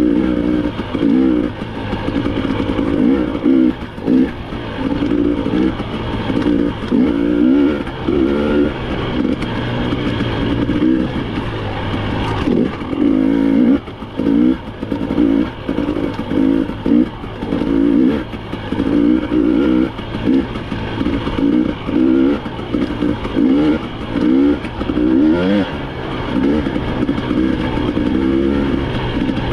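Off-road vehicle engine revving up and down over and over, the throttle opening and closing about once a second, over a steady low rumble and some clatter.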